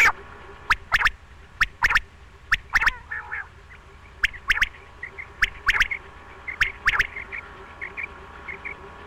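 Quail calling: sharp, clipped notes repeated in quick groups of two or three, roughly one group a second, with fainter short notes between the groups in the second half.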